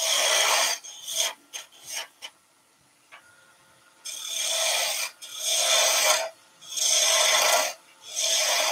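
A turning tool cutting a small wooden spindle on a lathe: a hissing scrape of wood being shaved away in repeated passes about a second long. The cutting stops for a gap of nearly two seconds in the middle.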